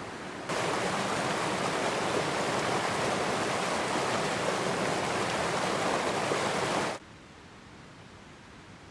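Rushing water of a mountain river, a steady, even hiss. It jumps abruptly louder about half a second in and drops abruptly to a much fainter hiss about seven seconds in.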